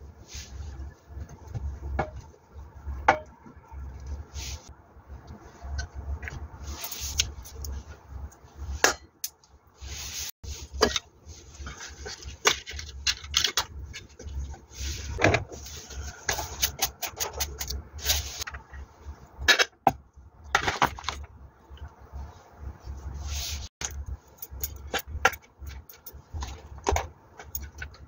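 Food being packed into a stainless steel compartment lunch tray: irregular clicks and taps of chopsticks and food against the metal, with rubbing and scraping sounds between them.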